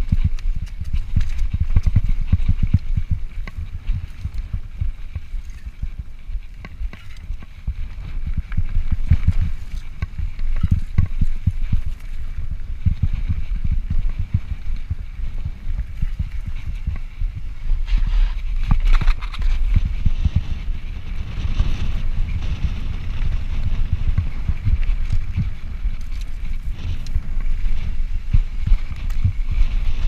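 Yeti SB5 full-suspension mountain bike riding down rough, rocky dirt singletrack, picked up by a chest-mounted camera: a steady, irregular clatter of knocks and thumps from the tyres, suspension and frame over rocks and ruts.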